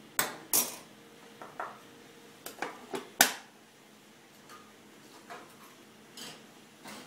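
Sharp clatters of a bowl and utensils being handled and set down on a hard surface: a quick series of knocks, the loudest about three seconds in, then a few fainter taps.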